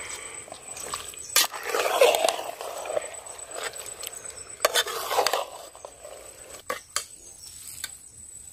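A spatula stirring chicken pieces in a metal cooking pot, mixing them through turmeric and masala. Wet scraping and shuffling, with three sharp clinks of the spatula against the pot.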